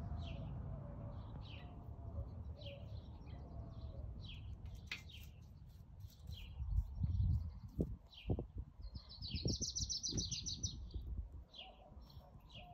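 Small birds chirping, short high chirps repeating every half second to a second, with a fast rattling trill about nine to eleven seconds in. A low rumble runs beneath, swelling around six to eight seconds in.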